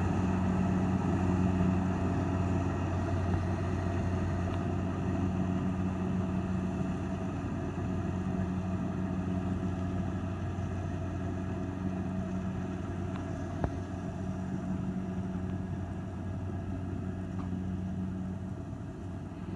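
Kubota DC-70 Plus rice combine harvester's diesel engine running steadily with a low, even drone that slowly fades a little toward the end. A single faint click comes about two thirds of the way in.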